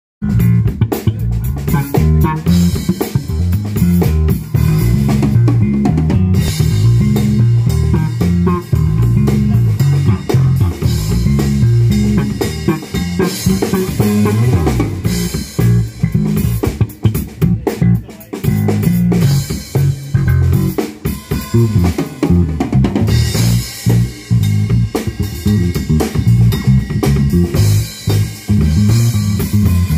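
Fender Player Series Precision Bass (split-coil pickup) played as a groove of changing low notes over a drum kit backing, with kick drum, snare and cymbals.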